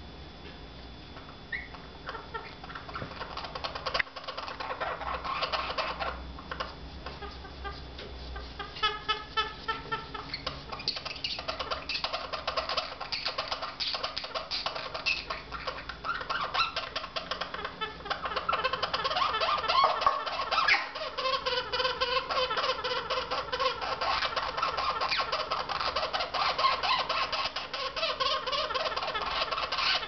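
White-capped pionus parrot making a harsh, rapid clicking chatter with pitched squeaks mixed in. It starts faint and builds to a continuous stream from about ten seconds in.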